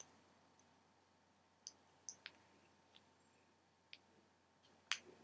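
Faint, sparse clicks and ticks of small plastic packaging being worked open by hand, a few light ticks spread out with the strongest near the end; otherwise near silence.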